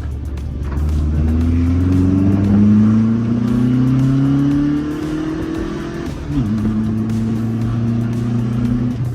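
Air-cooled VW 1776cc flat-four in a Beetle pulling under acceleration, its pitch rising steadily for about five seconds. About six seconds in it drops sharply at a gear change, then runs at a steady pitch.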